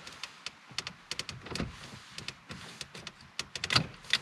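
Scattered plastic clicks and knocks from a Ford Mondeo Mk4's dashboard radio trim panel as it is handled and eased out of the dash, with a sharper cluster of clicks near the end.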